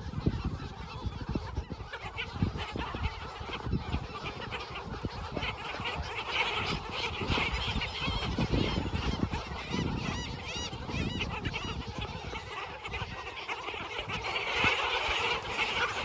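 A large mixed flock of black skimmers and gulls calling over one another in a dense chorus, stirred up by a person walking close: the birds are alarmed. The calling swells near the end as more birds lift off.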